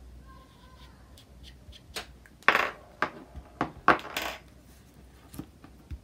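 Craft supplies being handled on a tabletop: scattered light clicks and taps of small hard objects, with two brief rustling swishes about two and a half and four seconds in.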